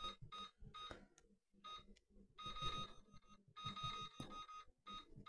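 Faint electronic beeps from a digital air fryer's touch-control panel as its buttons are pressed to step the timer down: a string of short beeps, two or three a second, with two longer beeps in the middle.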